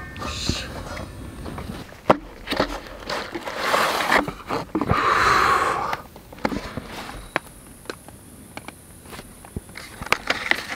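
Handling noises: scattered light knocks and taps, with a couple of seconds of rustling, scraping noise near the middle. In the later part come small clicks and taps as a box of cardboard matchboxes is handled on a wooden table.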